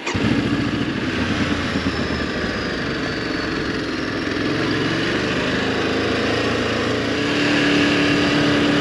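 Ducati motorcycle engine running on the move over a steady rush of road and wind noise. Its pitch sways in the middle and holds steadier toward the end.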